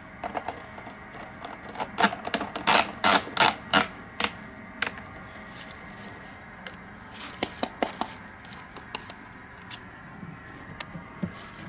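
Clicks and knocks from handling a plastic gas can and its spout: a quick cluster of sharp clicks about two seconds in, then scattered lighter clicks and rustles later on.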